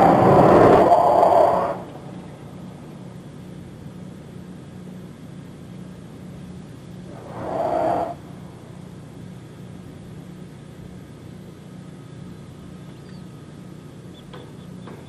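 Nitrogen gas venting from a SpaceX Super Heavy booster during a cryogenic proof test: a loud rushing hiss that cuts off about two seconds in. A shorter swell of the same rush comes just before eight seconds, over a steady low hum.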